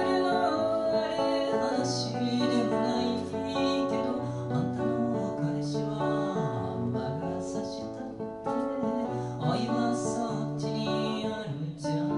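A woman singing to her own acoustic guitar accompaniment. The guitar plays throughout, and her voice comes in near the start and again near the end.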